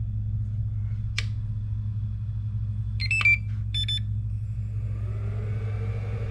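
Traxxas EZ-Peak Live LiPo charger humming steadily while it charges a battery, with a click about a second in and a few short electronic beeps around three seconds in.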